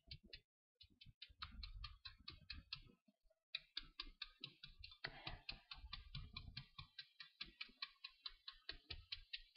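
Faint, quick tapping of a kitchen knife on a plastic cutting board, about six light taps a second, as a green onion is scored all round while being turned, the first step of mincing it. The tapping pauses briefly just after the start and again about three seconds in.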